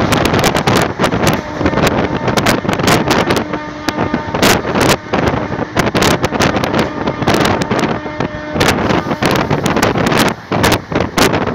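Wind buffeting the microphone held out of a moving passenger train's coach, over the train's steady running noise on the track, in uneven gusts.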